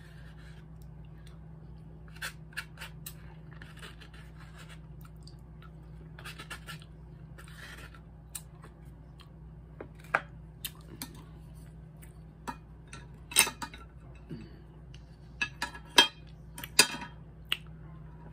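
Wooden spoon scraping the inside of a paper side cup of mashed potatoes, with chewing and mouth sounds between scoops. Scattered short scrapes and clicks, and a few louder knocks near the end.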